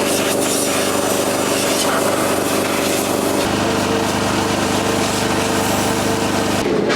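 A small engine-driven machine running steadily; its sound changes abruptly about three and a half seconds in and again near the end.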